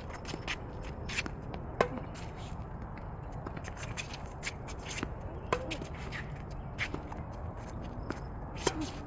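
Tennis rally on a hard court: racket strings striking the ball and the ball bouncing, with the nearest player's shots loudest, about 2, 5.5 and 8.5 seconds in. Tennis shoes shuffle and scuff on the court between shots.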